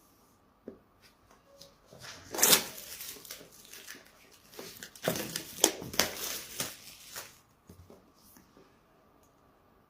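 Packaging being handled and opened: a few light clicks, then about five seconds of rustling, crinkling and tearing, loudest around two and a half and five to six seconds in.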